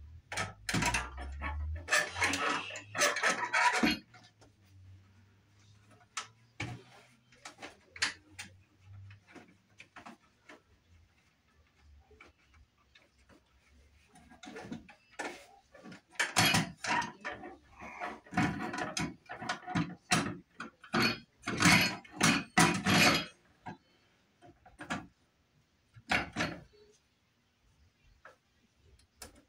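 A metal wall light fixture being handled and pushed onto its electrical box and mounting bracket: bursts of scraping and rattling, a few seconds at first and again for several seconds later on, with scattered clicks in between.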